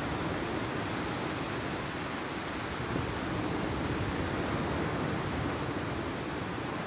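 Steady rushing noise of sea surf with wind, with no distinct breaks or separate wave crashes.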